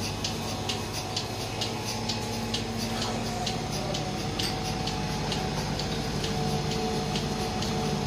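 Dairy milking machine running: pulsators ticking evenly, about three clicks a second, over a steady motor hum.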